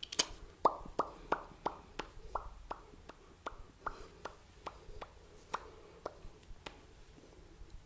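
Close-up ASMR mouth sounds: a run of sharp, wet mouth pops and clicks, about three a second, each with a quick drop in pitch. The pops are loudest in the first couple of seconds and grow softer and more spaced out toward the end.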